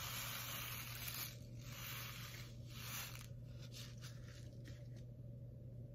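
Faint rustling and scraping of a paper seed packet being handled, in uneven spells that stop about five seconds in, over a low steady hum.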